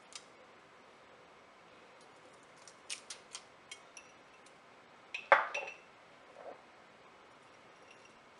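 Kitchen dishes and utensils handled: a few light clicks and ticks, then one sharper clink with a brief ring about five seconds in.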